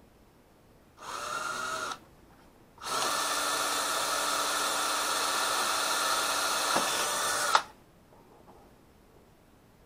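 Power drill boring a hole through a fiberglass hull: a one-second burst, then about five seconds of steady drilling that stops abruptly.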